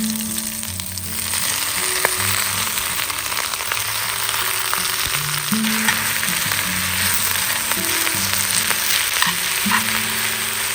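Food sizzling and frying in a hot pan: a steady loud hiss with scattered pops and crackles. Quiet background music plays underneath.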